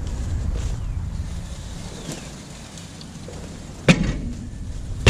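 A boot kicking a pickup truck's front tyre: a sharp thump about four seconds in, and another at the very end.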